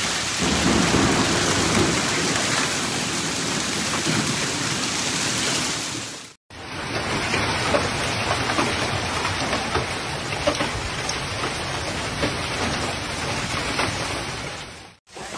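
Heavy storm of rain and hail: a dense, steady downpour with a low rumble in the first few seconds. After a brief break at about six seconds, hailstones strike the ground and a parked truck as scattered sharp ticks over the pouring rain.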